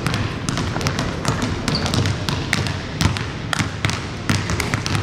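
Basketball being dribbled on a hardwood gym floor: repeated sharp bounces at an uneven pace.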